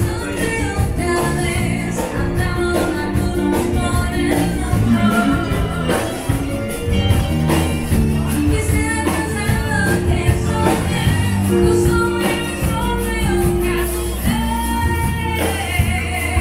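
Live band playing: a woman singing over electric guitar, drum kit and keyboard with a steady beat, holding one long wavering note near the end.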